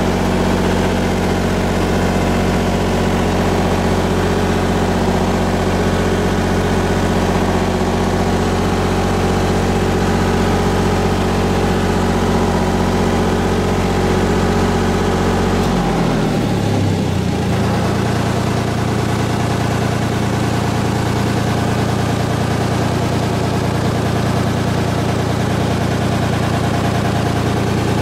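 Miller Big Blue 400D diesel welder-generator engine running steadily. About 16 seconds in its note falls and changes, then it settles into a different steady speed.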